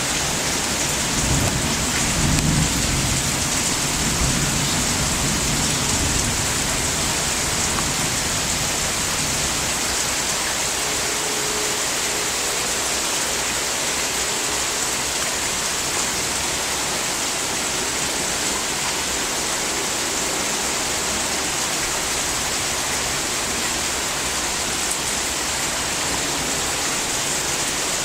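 Heavy rain pouring steadily. A low rumble of thunder runs under it for the first several seconds, then fades away.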